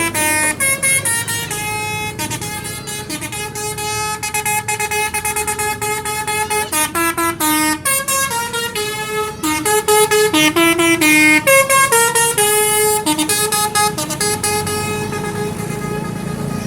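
Indonesian bus 'telolet' horn, a multi-tone musical air horn, playing a quick tune of short stepped notes over and over. The horn stops near the end, leaving a steady low rumble.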